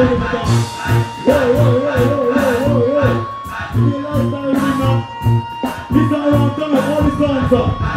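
Live band music played through a stage sound system: a singing voice holds long, wavering notes over a steady bass and drum beat.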